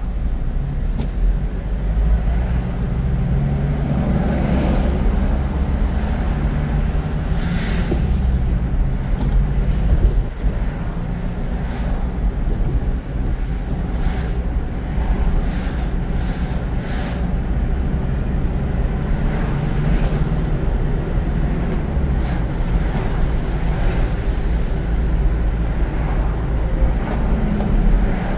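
Car driving in city traffic: a steady low rumble of engine and tyres, with the engine note rising for a couple of seconds as the car gathers speed about three seconds in. A few short knocks sound at intervals.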